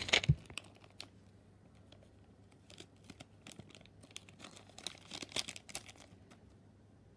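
Thin clear plastic bag crinkling in short bursts as it is handled and a small plastic figure is worked out of it, loudest right at the start and again around three and five seconds in.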